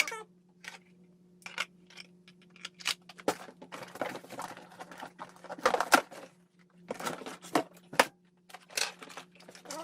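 Packaging of a new cordless pole saw being handled and opened: irregular crinkling, tearing and rustling with a few sharp knocks, over a steady low hum.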